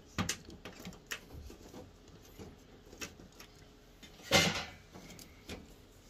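Scattered plastic clicks and knocks from handling a washing machine water inlet valve while a rubber fill hose is pushed onto its port, with one louder scraping rub about four seconds in.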